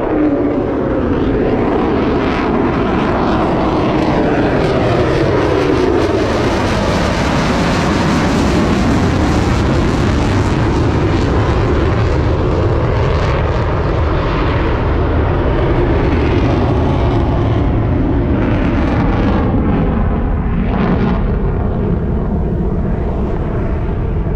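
F-35 Lightning II's single Pratt & Whitney F135 jet engine at full afterburner as the fighter passes. It makes a loud, steady rushing noise, and its tones fall in pitch over the first few seconds.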